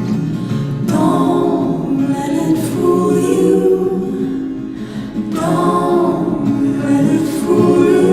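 Background music: voices singing together over a soft accompaniment.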